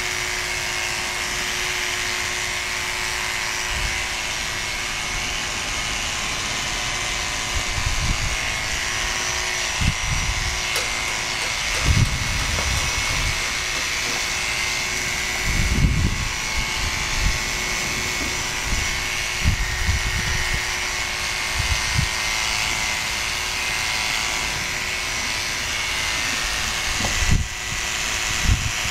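Corded electric horse clippers buzzing steadily while trimming the hair on a horse's head and around its ears. A few short low thumps stand out over the buzz.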